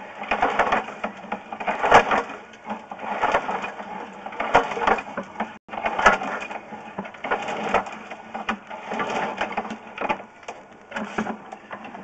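Sewer inspection camera's push cable being shoved by hand down the sewer line, scraping and rattling in repeated surges about every second or so.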